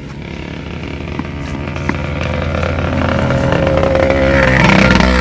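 A motor running steadily, growing louder and peaking near the end.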